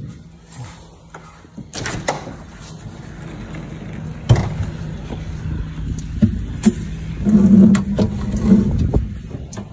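Knocks, bumps and rubbing as an acoustic guitar is picked up and carried through a doorway, over a steady low rumble of handling. Sharp knocks come about two and four seconds in and several times later. A low pitched tone sounds for about a second and a half near the end.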